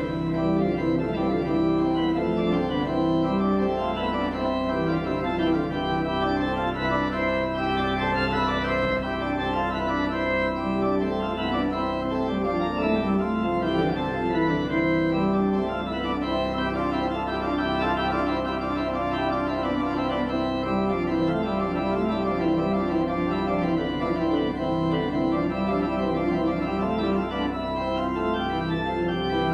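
Church pipe organ playing sustained chords, with a moving line of shorter notes in the middle voices.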